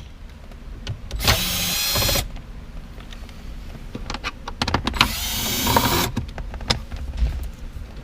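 Electric drill-driver spinning out the 7mm screws that hold a dash bezel, in two runs of about a second each, with light clicks and handling noises between.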